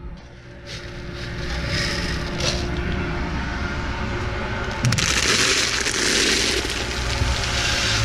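Metal scoop scraping and rustling in a bucket of sweet-feed grain, then, about five seconds in, a steady hiss of dry grain pouring from the scoop into a calf's feed bucket.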